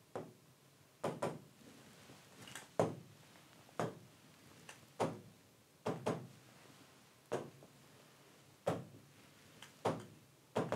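A stylus tapping on a large touchscreen display: about a dozen short, sharp taps at irregular intervals, roughly one a second, some coming in quick pairs like double-taps.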